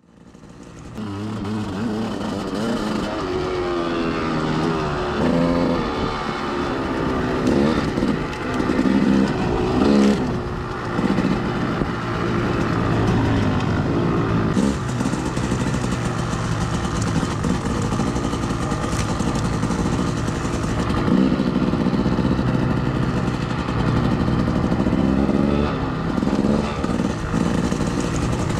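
Off-road vehicle engines revving, their pitch rising and falling again and again as they ride. The sound fades in over the first second.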